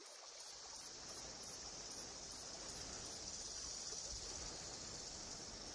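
Faint insect chorus: a steady high-pitched buzz with a regular chirping pulse above it, about three chirps a second.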